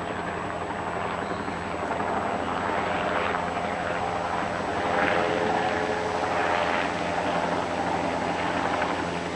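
Light helicopter circling low overhead: the steady drone of its rotor and engine, swelling slightly about five seconds in.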